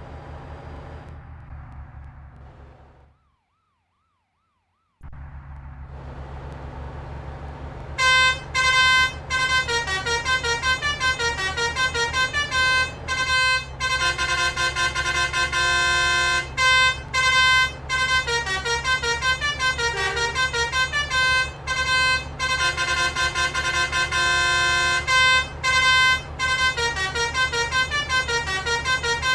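A bus's Basuri telolet multi-tone horn plays a continuous tune of quick high notes, pausing briefly between phrases, over the bus engine running. Before the horn starts, the engine runs alone, with about two seconds of silence a few seconds in.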